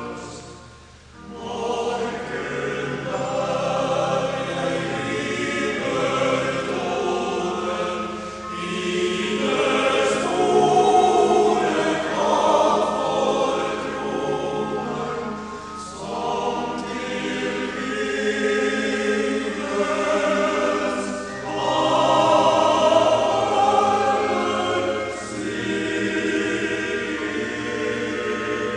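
Male voice choir singing a sacred song in Norwegian, in long sung phrases, with a short breath-pause about a second in.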